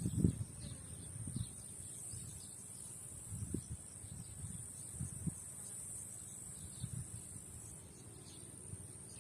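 Insects trilling steadily in a high, unbroken drone, with occasional low thuds on the microphone.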